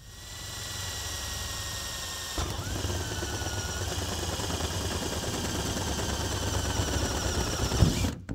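Cordless drill running steadily as it bores a pilot hole through sheet-metal truck roof. The sound grows louder and changes character about two and a half seconds in, then stops abruptly near the end.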